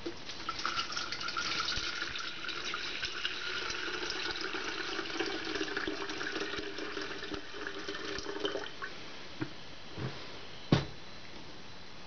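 Water poured from a jug into an empty stainless-steel Scarlett SC-EK21S24 electric kettle: a steady splashing stream with a couple of steady tones in it, stopping about nine seconds in. Then three short knocks, the last one sharp and the loudest.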